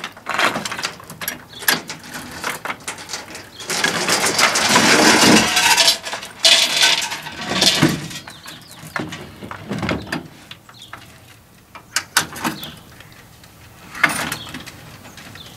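Metal chains rattling and clinking as a wooden porch swing is let down on them, with knocks of the swing's wood. The rattling is loudest in the middle, then dies down to a few clicks near the end.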